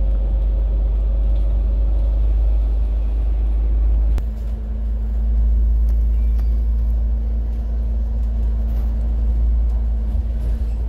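Steady low rumble of engine and road noise inside a moving double-decker bus cruising on an expressway, with an even engine hum. A short knock comes about four seconds in, and the hum then shifts slightly higher.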